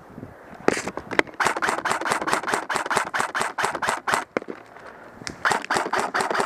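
Airsoft electric rifle firing on full auto: a couple of single shots, then a long rapid burst of about eight shots a second, a short pause, and a second burst near the end.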